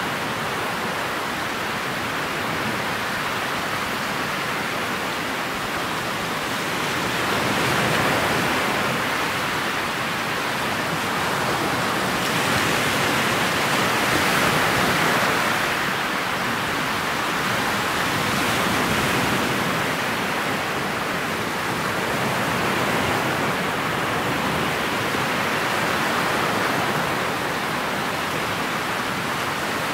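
Motorboat under way: an even rush of water along the hull, swelling and easing every few seconds, with no clear engine note.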